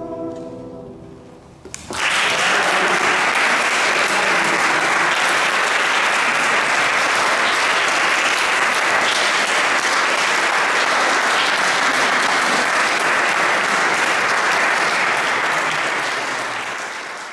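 The last held notes of the music die away, and about two seconds in an audience bursts into applause that carries on steadily and fades out near the end.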